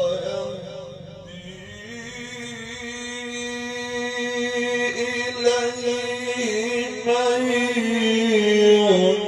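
A man's voice reciting the Quran in the melodic mujawwad style, drawing out long ornamented melodic phrases whose pitch wavers and bends, growing louder toward the end.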